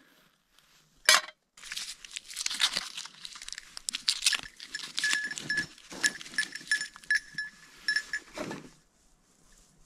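A goat bleating, amid a run of close crunching, rustling and crackling.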